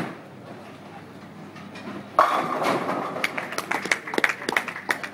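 Tenpin bowling ball rolling down the lane, then about two seconds in striking the pins: a sudden crash followed by pins clattering and knocking together for a few seconds.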